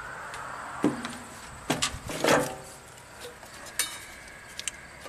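A handful of light, sharp metal clicks and clinks, scattered about a second apart, as a test light's alligator clip and lead are handled and clipped on to ground the fuel gauge sender wire.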